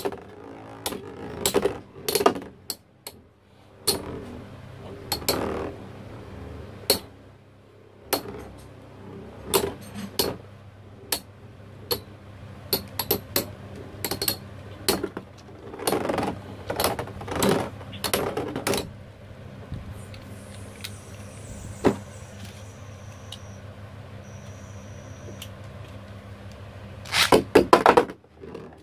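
Two battle spinning tops clashing, with many sharp irregular clacks over a steady spinning hum. The collisions ease off for several seconds past the middle, leaving mostly the hum, then come in a quick cluster near the end.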